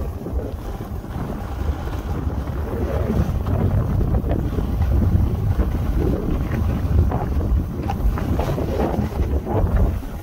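Wind buffeting the microphone during a fast downhill run on a ski slope, a heavy low rumble, with the rough scrape of riding over packed, groomed snow beneath it.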